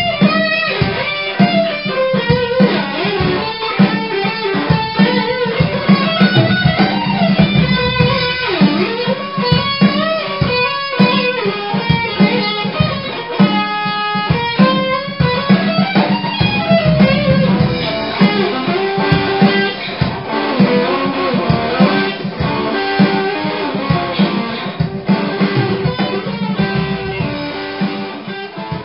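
Electric guitar playing a rock lead line with many bent notes gliding up and down in pitch. A steady low accompaniment runs beneath it, and the sound grows quieter near the end.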